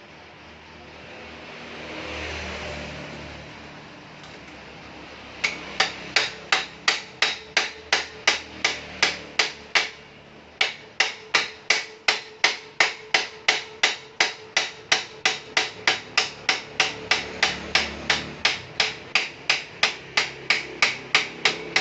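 A hammer striking steadily during bicycle repair work, about four even blows a second, with a faint ringing between strokes. The blows start about five seconds in after a short rushing hiss, stop briefly near the middle, then resume.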